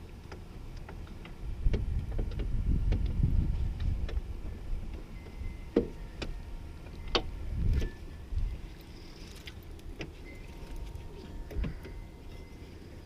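Clicks, knocks and rattling of hands handling the door latch linkage inside the door, with its rods and plastic clips, with a stretch of rumbling handling noise early on and several sharp separate clicks later.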